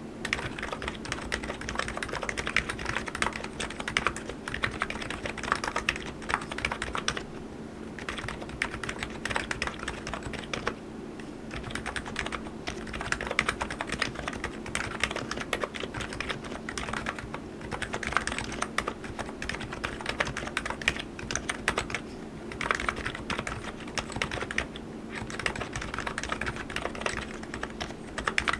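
Continuous typing on an ABKO KN02C electro-capacitive (contactless, Topre-style) keyboard: a rapid stream of keystrokes with a few short pauses.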